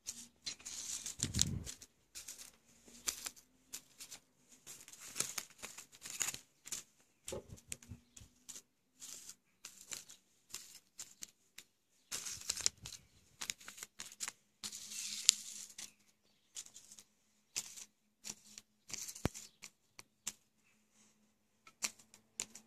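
Plastic fart bomb sachets crinkling and rustling as they are handled, in irregular short bursts with small clicks.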